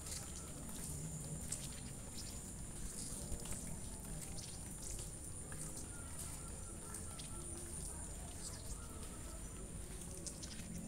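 Rural outdoor ambience after rain: insects chirring in a steady high drone, with scattered light taps and clicks over a low rumble.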